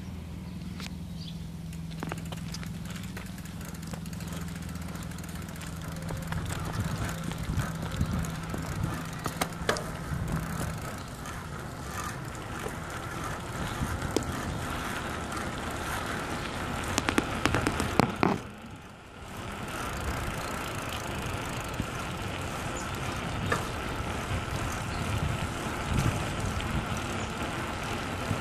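Bicycle being ridden over a bumpy asphalt road, picked up by a phone held in the rider's hand: a steady rumble of tyres and rattling, with scattered knocks and a cluster of sharper knocks about two-thirds of the way through, then a brief lull.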